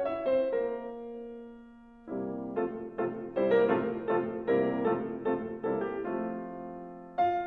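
Piano music: a held note fades away over the first two seconds, then new notes and chords come in.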